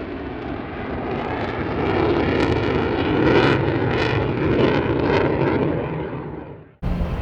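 Lockheed Martin F-35A Lightning II's Pratt & Whitney F135 turbofan passing during a display. The jet noise swells with a crackling edge from about two seconds in, then fades. Near the end it cuts off abruptly and a different low rumble starts.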